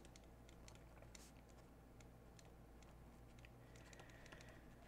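Near silence with faint, irregular clicks and taps of a stylus writing on a drawing tablet, over a low steady hum.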